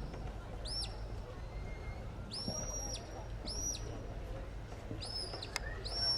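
A sheepdog handler's whistle giving commands to the dog: about five high whistled notes in succession. Each note rises sharply, holds briefly and drops away, and two of them are held longer than the rest.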